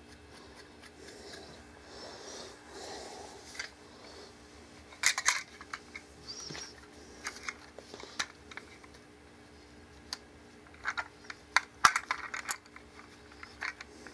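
Sharp clicks and clinks of camera mounting hardware being handled and fitted together: a couple about five seconds in, a few scattered after, and a cluster near the end.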